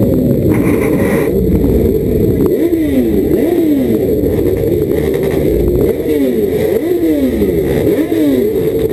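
Motorcycle engines revved over and over, the pitch rising and falling about once a second in repeated throttle blips over a steady background of running engines.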